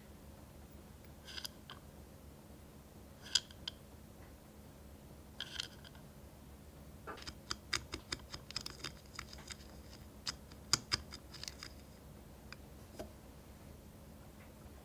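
A tiny metal spoon clinks lightly against miniature glass bowls three times while scooping sugar. About seven seconds in, a wooden stick stirs in a tiny glass cup, giving a quick run of light clicks and scrapes for about four seconds.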